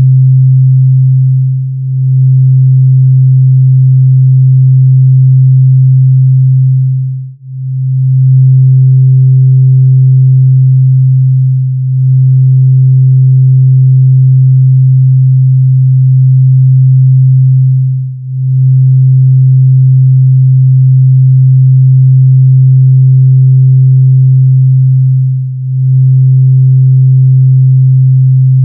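Drone music: a loud, steady low tone with a much fainter higher tone above it, briefly fading out and back in five times.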